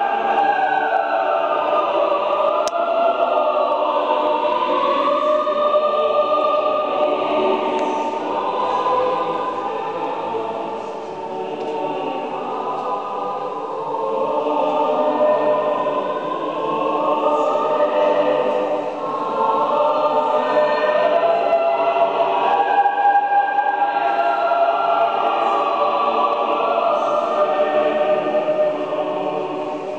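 A choir singing: several voices holding long, overlapping sustained notes.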